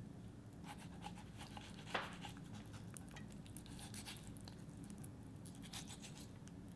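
Kitchen knife slicing and scraping through raw chicken meat along the backbone, faint small ticks with one sharper click about two seconds in, over a low steady hum.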